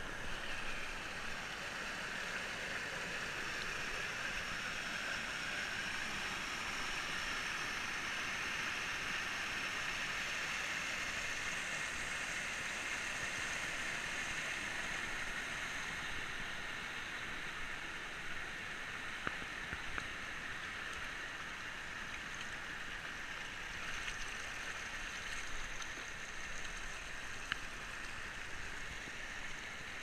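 Shallow rocky stream rushing over stones and small cascades: a steady hiss of running water, with a few faint clicks in the second half.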